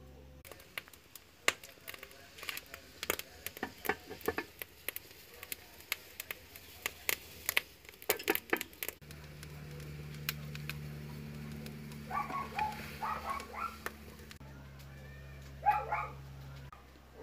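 A run of sharp, irregular clicks and pops for the first half, then a steady low hum with a few short animal calls.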